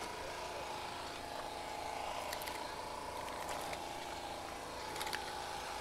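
An engine running steadily at an even speed, a constant hum, with a few faint clicks.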